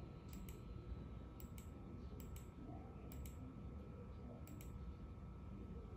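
Faint double clicks of a computer mouse, about five pairs a second or so apart, over a quiet room with a faint steady hum.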